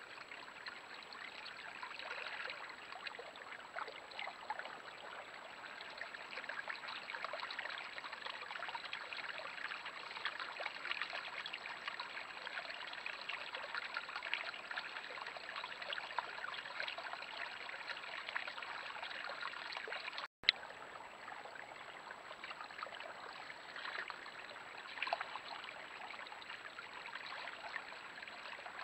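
Water trickling and running steadily in a small stream, a constant rushing hiss with faint irregular crackles in it.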